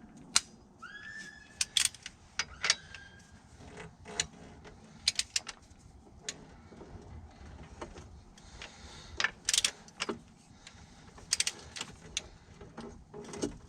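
Irregular metallic clicks and clinks of hand tools and bolts as engine fasteners are run in snug, with a short rising squeak about a second in.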